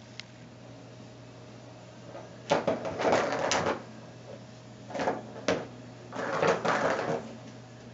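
A cat pawing at a Bergan Turbo Scratcher toy, its ball clattering around the plastic track. There are three bouts of scuffling and rattling: about two and a half seconds in, around five seconds, and from about six to seven seconds.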